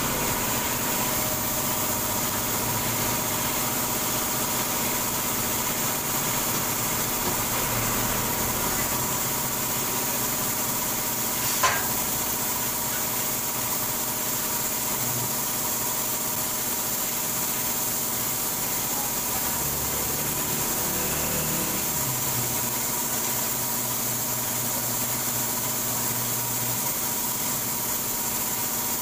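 A motor running steadily with a constant hum, and a single sharp click about twelve seconds in.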